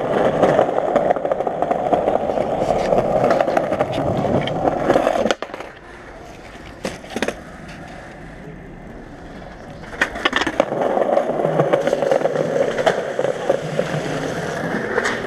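Skateboard wheels rolling over pavement. The rolling drops off suddenly about five seconds in, a few sharp board knocks follow in the quieter middle, and the rolling picks up again for the last few seconds.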